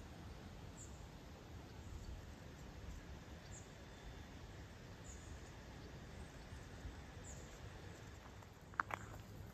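Quiet outdoor ambience by a lake: a low steady rumble with a few faint, short, high bird chirps every second or two. A single sharp tap near the end is the loudest sound.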